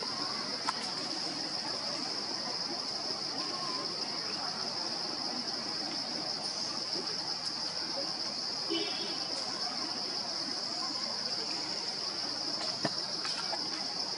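Insects droning steadily in one continuous high-pitched tone, with a few faint clicks and a brief short call about nine seconds in.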